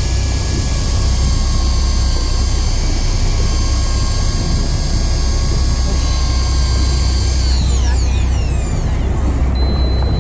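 Small electric fishing reel winding in line with a steady motor whine that slides down in pitch and stops about three-quarters of the way through, as the rig reaches the surface; a short high tone follows near the end, over a steady low rumble.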